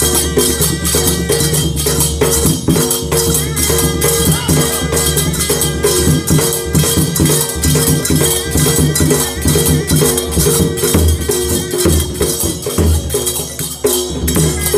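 Odia Danda Nacha folk music: a large double-headed barrel drum (dhol) beaten in a fast, steady rhythm, with a repeating melody running over it.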